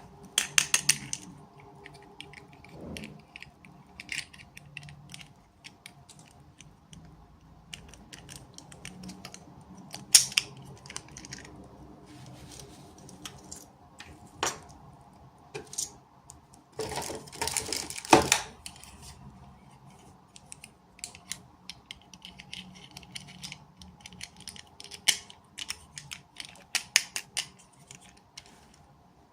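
Miniature toy packaging being opened and handled: scattered sharp clicks and taps of small plastic parts, with short bursts of crinkling and rustling near the start and a longer one about two-thirds of the way through.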